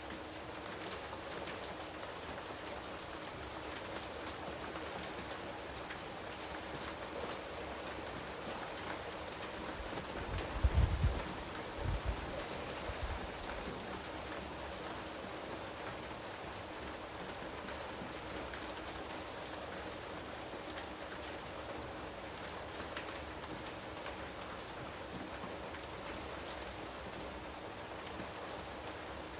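Steady rain falling, an even hiss of many drops. Two brief low rumbles rise out of it around ten and twelve seconds in.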